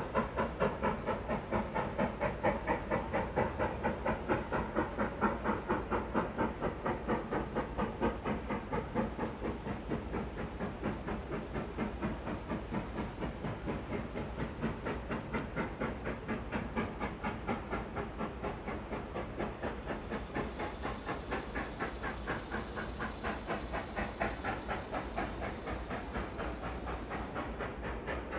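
Reading 2102, a 4-8-4 steam locomotive, working with a steady rhythm of exhaust chuffs that slowly grow fainter. A high steam hiss joins about two-thirds of the way through and cuts off suddenly near the end.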